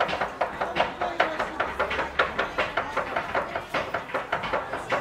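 Two cleavers chopping hard candy on a wooden board (tontoko ame-giri): fast, rhythmic knocking, several chops a second, with the two cutters' strokes interlocking like a polyrhythm.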